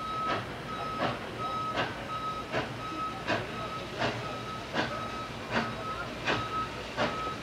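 Steam locomotive No. 18, a 2-8-0, working slowly forward, with regular exhaust chuffs about every three-quarters of a second. A short, high ringing tone repeats between the chuffs.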